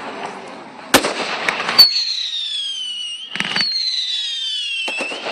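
Fireworks display: two sharp bangs, then two long whistling screamer fireworks, each falling in pitch, with a brief crackle between them.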